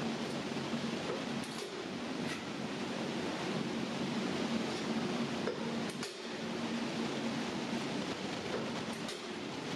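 A sheet-metal shrinking machine working the edge of a fender panel, making a steady mechanical noise with a low hum. A few sharp metallic clinks come through, about two seconds in, around six seconds in and near the end.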